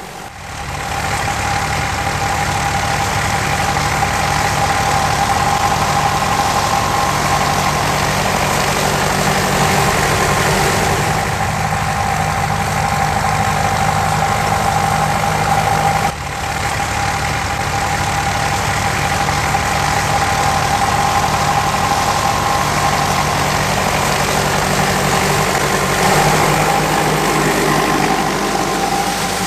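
Grey Ferguson tractor's engine running steadily under load as it pulls a set of Ferguson disc harrows, with a brief break about halfway through.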